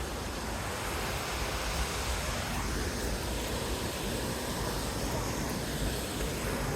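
Steady rushing of fast-flowing mountain water, with wind buffeting the microphone.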